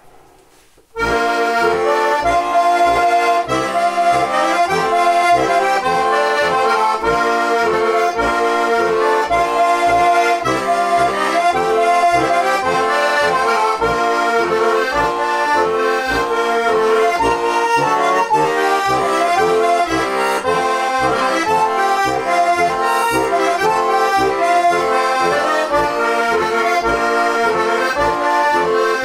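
Heligonka, a Žúbor diatonic button accordion tuned F–B♭ with four-voice brass Dixi reeds, playing a Slovak folk tune. The melody runs over a steady beat of bass notes, starting about a second in.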